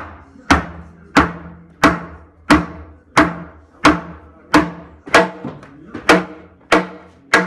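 Hammer blows at construction work, struck at a steady pace of about one and a half a second, each blow sharp with a brief ringing tail.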